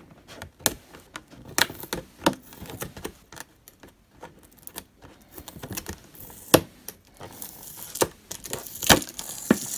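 Fingernails picking at and peeling a sticker off a thin clear plastic packaging box: irregular clicks and ticks, with a stretch of crinkly crackling as the sticker comes away in the second half.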